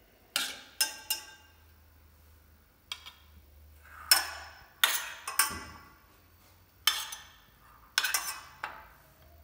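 Metal spoon clinking against a stainless steel saucepan while scooping out small boiled potatoes: about ten sharp, ringing clinks in irregular groups.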